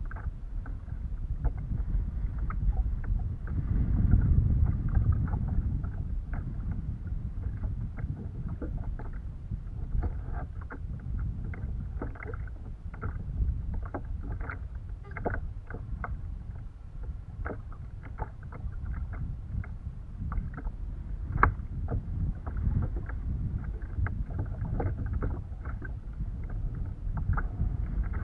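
Choppy water slapping and sloshing against a plastic kayak hull under a low rumble of wind, louder about four seconds in, with many small sharp clicks and taps scattered throughout.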